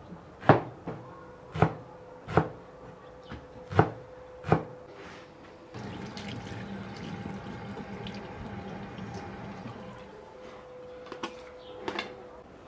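A kitchen knife chopping green herbs on a wooden cutting board: about six sharp knocks in the first five seconds. Then tap water runs over hands into a stainless steel sink for about four seconds, and near the end a few light clinks of a spoon on a metal plate as minced meat is tipped into a glass bowl.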